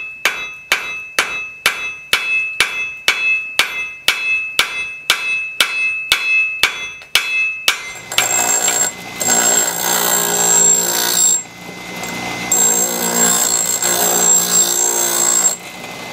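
Hand hammer striking red-hot steel on an anvil, about two and a half ringing blows a second, as a horseshoe rasp is forged into an adze blade. About eight seconds in this gives way to a DeWalt bench grinder grinding the blade's bevel: a steady whine and hiss that drops away briefly midway.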